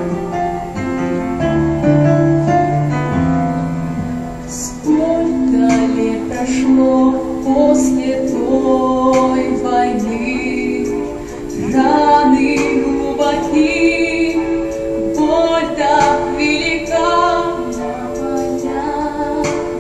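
Female vocal ensemble singing a song over instrumental accompaniment. The voices come in about five seconds in, after an instrumental introduction.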